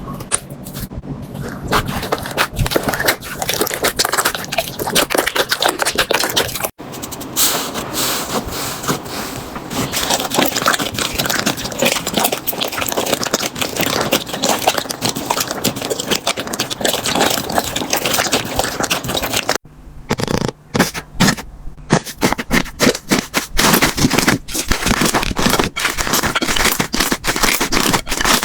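Slime being squeezed and worked by hand, a dense run of crackling and popping. The sound breaks off abruptly and changes character twice, about seven seconds in and again about twenty seconds in.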